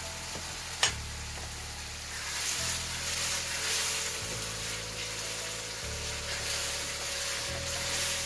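Chicken sizzling and bubbling in sauce in a wok over a high gas flame while a wooden spatula stirs it, the sizzle growing louder about two seconds in. A single sharp click comes just under a second in.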